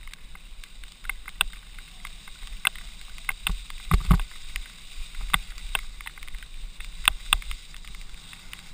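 Mountain bike clattering down a rough dirt trail: irregular sharp rattles and knocks from the bike as it hits bumps, over a steady low rumble, with a heavy thump about four seconds in.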